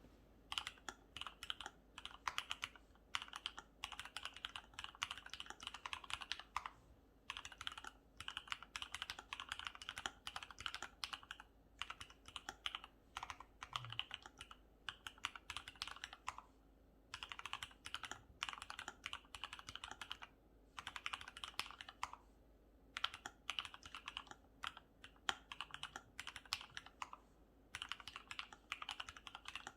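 Typing on a custom mechanical keyboard with lubed linear Cherry MX Black (Hyperglide) switches, PBT Cherry-profile keycaps and a foam-dampened case: fast runs of keystrokes with short pauses between them.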